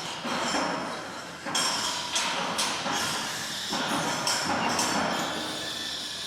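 Metal being struck on a construction site: a handful of sharp, irregularly spaced clanks with a short metallic ring, over a continuous rumble of site noise, with a hiss rising near the end.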